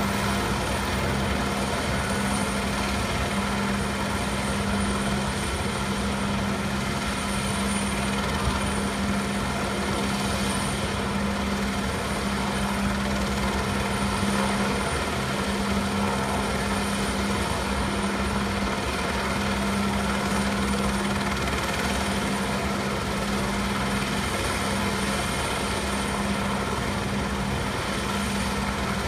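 Helicopter running with a steady, unbroken drone.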